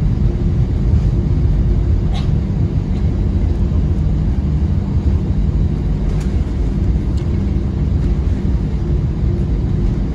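Steady low rumble in the cabin of an Airbus A320 on the ground: its two CFM56-5B engines running at idle and the wheels rolling, with a faint steady hum and a few faint clicks.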